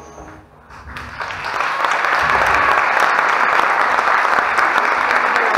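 Audience applauding in a theatre hall: the clapping begins about a second in and quickly builds to steady applause.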